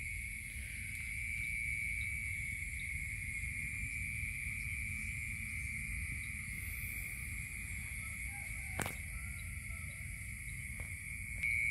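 Steady high-pitched insect chorus at dusk, with a low rumble underneath and a single sharp click about nine seconds in.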